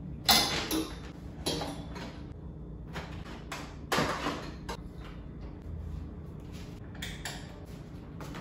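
About ten short scrapes and knocks from objects being handled under a desk and in a storage box, the loudest about four seconds in, over a steady low hum.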